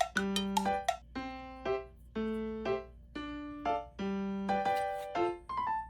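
Background music: a simple keyboard melody of single notes, each struck and fading away, about one or two a second.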